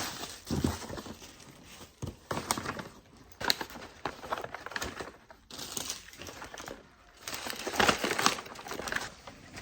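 Packaging crinkling and rustling in irregular bursts as a package is opened by hand, loudest near the end.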